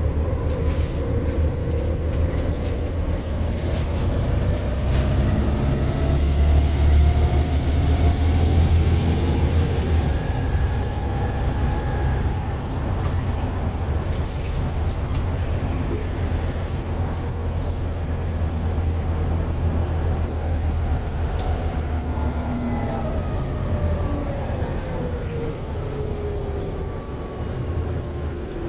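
Volvo B7TL double-decker bus under way, heard on board: diesel engine running over a steady low rumble, with a transmission whine that rises in pitch as the bus accelerates over the first ten seconds or so, then falls away as it slows near the end.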